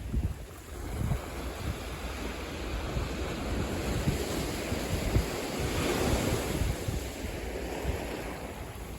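Ocean waves breaking and washing up a beach, with one wave swelling in and out around the middle. Wind buffets the microphone, adding a low rumble.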